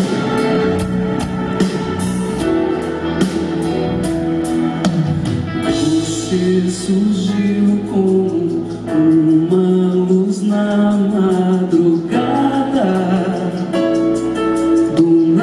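Live band music with singing, played in a large hall.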